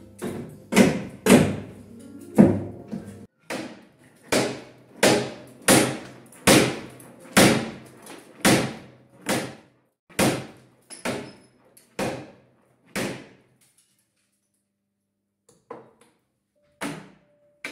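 Hammer striking a plaster wall beside a window frame, a little over one blow a second, with a short pause then a few more blows near the end.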